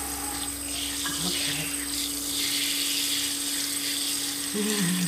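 Running water from a kitchen sink's pull-down sprayer pouring over a wet kitten and splashing into the sink, a steady hiss. A brief low voice sounds near the end.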